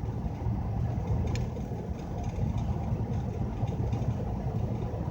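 Low, steady vehicle engine rumble, with a faint click about a second and a half in.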